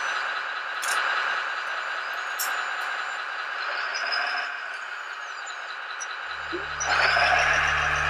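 Graupner Liebherr 574 RC model wheel loader running steadily while it tips a bucket of gravel into a model dump truck, with a few sharp clicks of stones. About six seconds in, music with a low steady tone comes in and gets louder.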